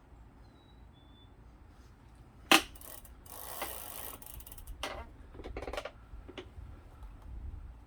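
Metal hand-tool work on a bicycle pedal: a sharp clack about two and a half seconds in, then about a second of ratcheting and scraping, and a few shorter ratcheting spells after it.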